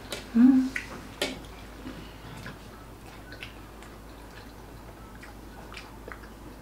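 Close-up chewing of a burger: small wet mouth clicks and smacks, with two sharper clicks near the start and a brief hum of the voice at about half a second.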